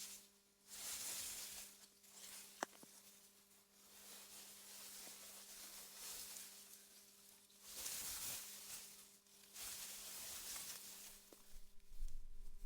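Wind blowing through meadow grass, coming in soft swells of hiss that rise and fade every couple of seconds over a faint steady hum. One sharp click about two and a half seconds in, and a low rumble sets in near the end.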